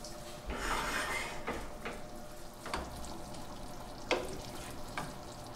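Wooden spoon stirring thick cauliflower mash in a stainless steel saucepan. There is a burst of scraping about half a second in, then several sharp knocks of the spoon against the pan.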